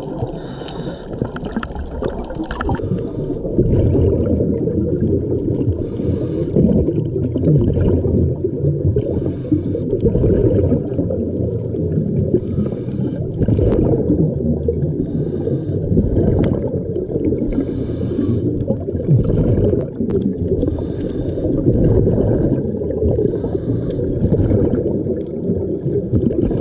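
Scuba diver breathing underwater through a regulator: short hissing breaths recur every two to three seconds over a steady low rumble of water and bubbles.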